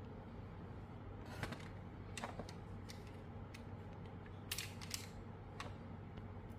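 Packaging being handled during an unboxing: a few short clicks and crinkles, irregularly spaced, over a steady low hum.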